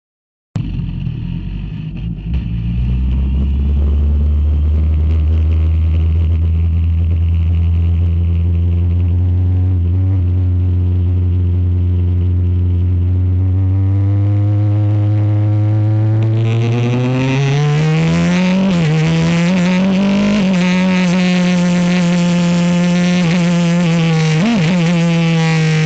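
Ligier race car's Honda engine running. A steady low engine note starts about half a second in and climbs slowly in pitch. After about 16 seconds the revs rise faster and the sound turns brighter, and the pitch dips briefly twice near the end.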